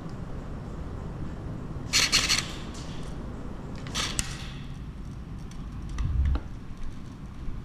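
Two short bursts of rapid airsoft rifle fire, about two seconds apart, each a quick string of sharp cracks, followed by a dull thump about six seconds in.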